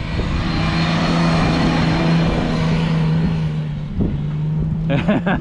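A four-wheel drive's engine pulling steadily under load as the vehicle climbs a soft sand dune, its note holding at one pitch, with a rushing noise that swells and then eases off near the end. A voice starts right at the end.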